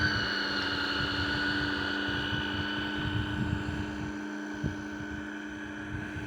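Small electric motor and propeller of an RC fishing boat running with a steady high whine, slowly getting a little quieter.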